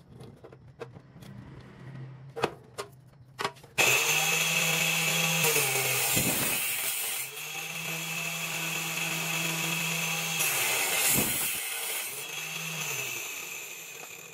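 A few faint clicks, then about four seconds in an electric saw on a homemade sliding table saw starts and runs loud with a high whine. Its pitch dips a few times as it cuts, and it stops at the very end.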